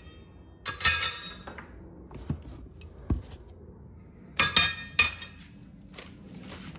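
Steel brackets and hardware of an air-spring kit clinking and clanking as they are taken out of a cardboard box and set down on a wooden workbench. The clinking comes in two bursts, about a second in and again about four and a half seconds in, with a dull thump in between.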